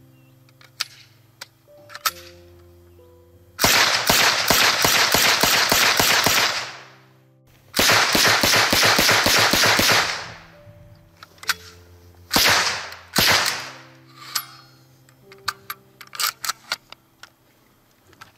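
STEN Mk II 9 mm submachine gun firing two long full-auto bursts at about eight shots a second, followed by two single shots. Background music runs underneath.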